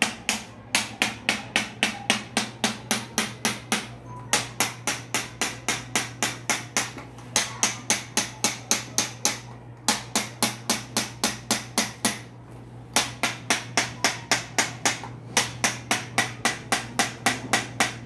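Handheld chiropractic adjusting instrument tapping rapidly on the lower spine, about five sharp clicks a second, in runs broken by short pauses every few seconds.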